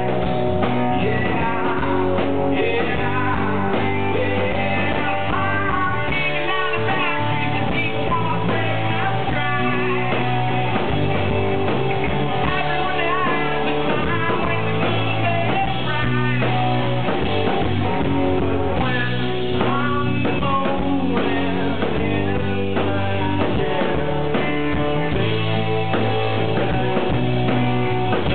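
Live rock band playing electric guitars and a drum kit, with a voice singing over them.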